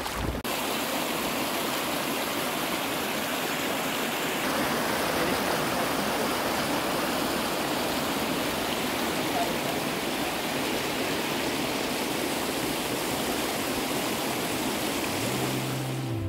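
Shallow clear river rushing steadily over flat pebbles and stones. Music comes in softly just before the end.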